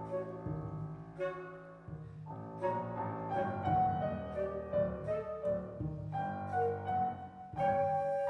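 A chamber ensemble of flute, clarinet, electric guitar, piano and acoustic bass playing contemporary classical music. Struck piano chords and sustained wind lines sound over held low bass notes.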